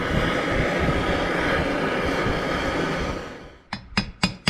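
A steady rushing, blowing noise runs for about three seconds and then stops. Near the end come quick, sharp taps on metal with a ringing note, about four a second: a bearing or seal being tapped into the engine case.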